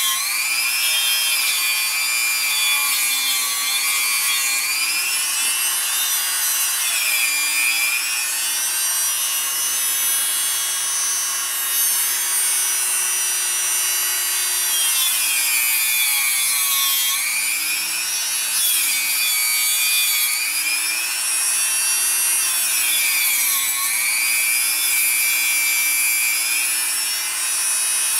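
High-speed rotary tool running with a high whine. The pitch dips each time the tool is pressed into the work and rises again as it is eased off.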